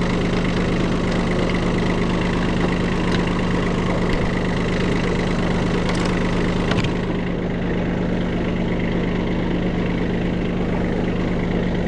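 Kubota tractor's diesel engine idling steadily, with a few short clicks over it, and the sound turns duller about seven seconds in.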